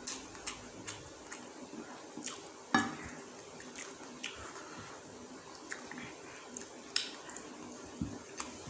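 Eating by hand: wet chewing and mouth sounds and fingers squishing goat curry and rice on a plate, with scattered small clicks and a sharper knock about three seconds in.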